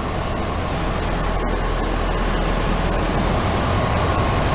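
Steady engine and wind noise inside the cockpit of a Luscombe light airplane in flight, an even rushing hiss over a low drone.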